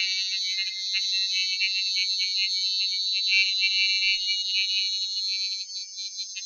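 A steady, high-pitched shimmering drone made of many close overtones that flicker and shift, like a sustained tone held after a chanted bija mantra; it thins out a little near the end.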